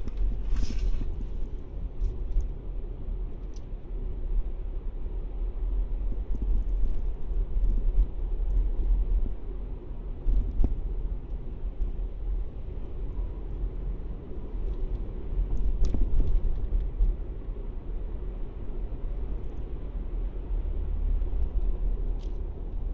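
Vehicle driving slowly through city traffic: a steady low road and engine rumble, with a few short clicks.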